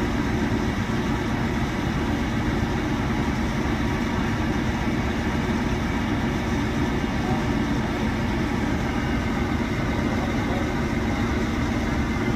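Heavy truck engine idling steadily, a constant low drone with no revving.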